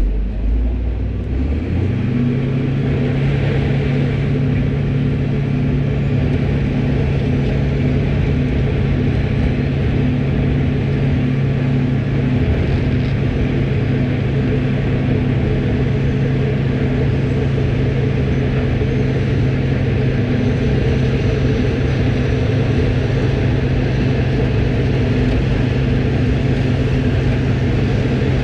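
Road cold-milling machine with a 1 m drum at work: its diesel engine picks up to a steady high speed about two seconds in and holds there. A constant rough grinding noise from the milling drum and conveyor runs over it.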